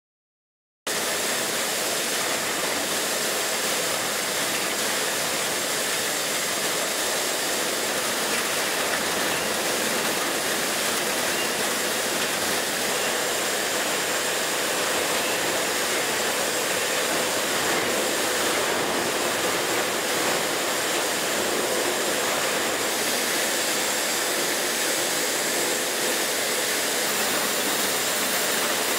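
Four-post servo-hydraulic road simulator running under a pickup truck: a steady hiss and rush of hydraulics with a faint whine, cutting in suddenly about a second in and holding an even level.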